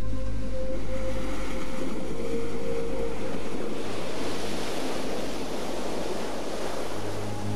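Surf breaking and washing up a pebble beach, with wind rumbling on the microphone during the first few seconds. The wash of the surf swells about four seconds in.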